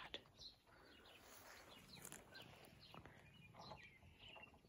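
Near silence, with a few faint, short bird chirps.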